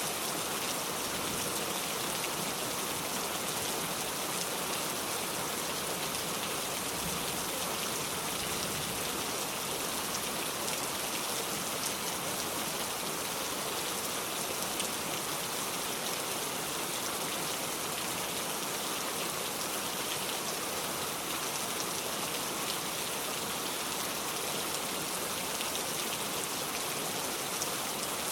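Steady rain falling, a dense even hiss of many fine drops pattering on a surface.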